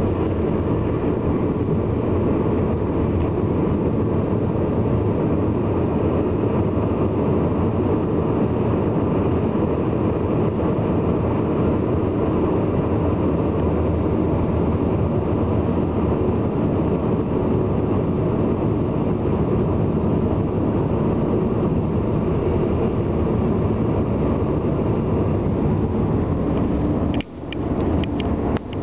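Steady road and engine noise heard from inside a moving car in traffic. Near the end the noise dips for a moment and a few sharp clicks sound.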